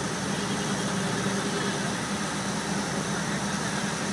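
Steady rushing of water from a large illuminated fountain's falling water curtain, with a steady low hum beneath it.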